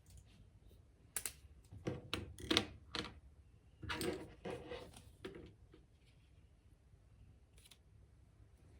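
A run of short clicks and rustles from small objects being handled on a desk, bunched between about one and five and a half seconds in, then a faint steady room background.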